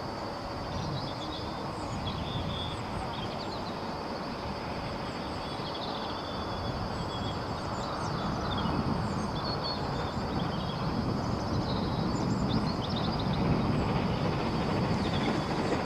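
Distant rumble of an approaching train, growing slowly louder through the second half, with birds chirping.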